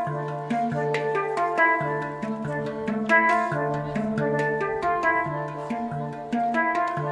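Handpan (hang drum) played with the fingers: struck steel notes that ring on and overlap, over a low note that keeps coming back in a steady rhythm.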